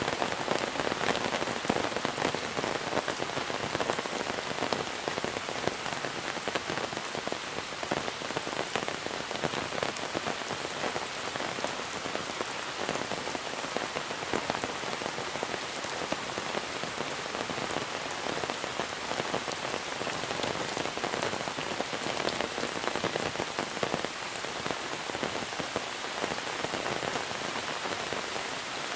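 Steady monsoon rain falling, many fine drop patters over a constant hiss.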